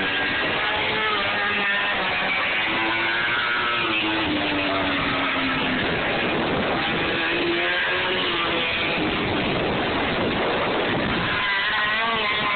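MotoGP racing motorcycle engines running on the track, their pitch gliding up and down as the bikes pass and change speed, with one long falling note a few seconds in.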